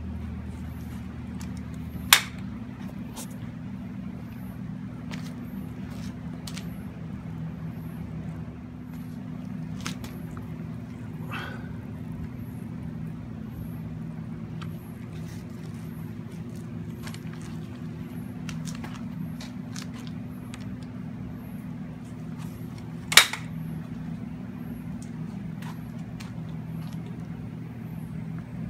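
A steady low hum, with two sharp clicks, one about two seconds in and one near the end.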